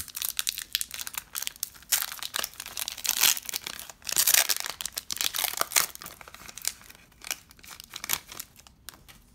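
A foil Pokémon trading-card booster pack wrapper being torn open and crinkled by hand: a run of irregular crackling rustles, loudest in the middle.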